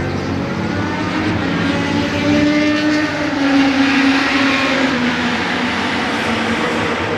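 Several racing motorcycle engines running hard through a corner on a racetrack, their notes rising and falling as they shift and accelerate, overlapping one another. The sound swells a little past the middle as a bike passes close.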